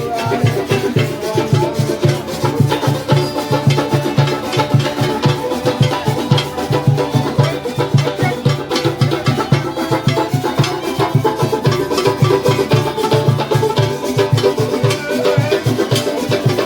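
String band music playing with a steady dance rhythm: a plucked bass line, pitched string instruments above it and shakers ticking along.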